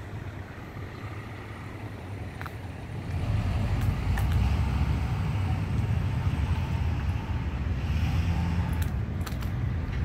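Road traffic: a motor vehicle's low engine rumble that swells about three seconds in and stays up, with a few faint clicks over it.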